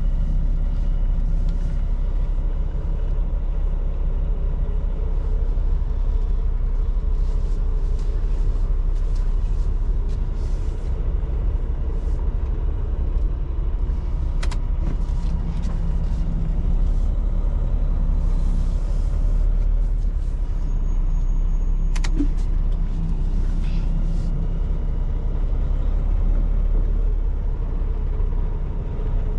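Semi-truck diesel engine running steadily at low speed, with two sharp clicks partway through.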